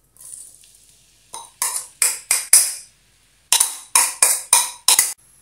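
Chopped chilli, onion and garlic hitting hot oil in a wok with a brief sizzle that fades over about a second. Then two runs of quick, rhythmic scrapes and taps, about three a second, as a metal spoon works the paste out of a ceramic bowl.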